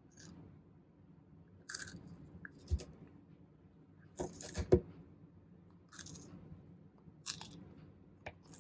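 A red-footed tortoise biting and crunching its food: about seven separate crisp crunches spaced roughly a second apart, the loudest a little past the middle, over a faint low hum.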